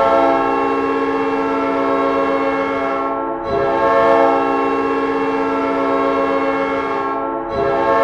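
Custom Winnipeg Jets hockey goal horn: a multi-tone air horn sounding a chord in long blasts of about four seconds, with a brief break between blasts about three and a half seconds in and again near the end.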